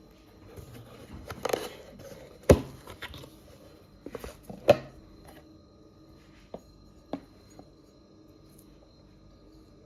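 Objects being handled and set down: a brief rustle, then two sharp knocks about two and a half and four and a half seconds in, followed by a few lighter taps.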